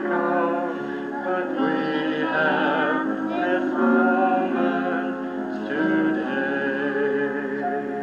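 Background music: a slow song with a sustained singing voice over instrumental accompaniment.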